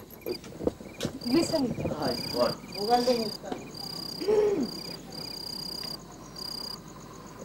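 Crickets chirping in high trills, each run lasting about half a second to a second with short gaps between. Indistinct voices of people talking are heard over them in the first half.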